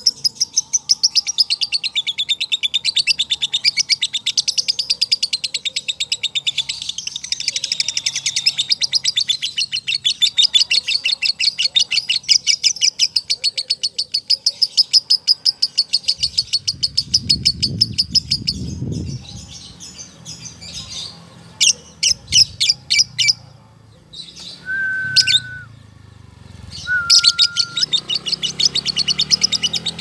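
A male Fischer's lovebird's long 'ngekek' chatter: a fast trill of sharp, high notes that runs unbroken for nearly twenty seconds. It then breaks into short chatters and two brief whistled notes, and a new fast trill starts near the end. The long, near-continuous trill is the 'ngekek' song prized in male lovebirds.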